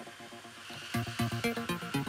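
Background electronic music with a steady beat; the beat drops out at the start under a rising swish and comes back about a second in.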